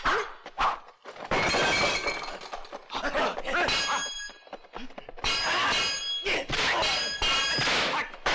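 Swordfight sound effects: clashing blades and crashes of things breaking, in a quick run of loud, sharp bursts, some of them ringing.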